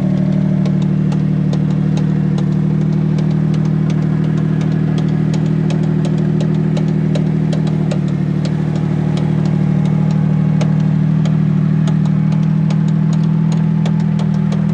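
Mitsubishi Pajero II's 3.5-litre V6 engine running loud at a steady, unchanging pitch, with a fast scatter of light clicks over it.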